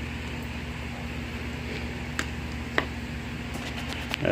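Steady low electrical hum over a faint hiss, with a few faint ticks about two seconds in and a small cluster of ticks near the end.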